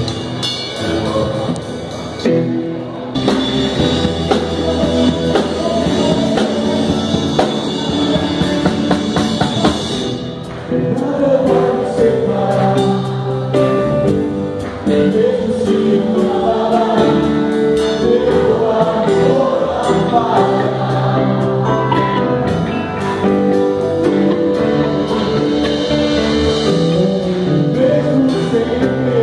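Live gospel worship music: a band with electric guitar and drums plays while singers and a crowd sing together. A bright cymbal-like wash in the highs drops out about ten seconds in.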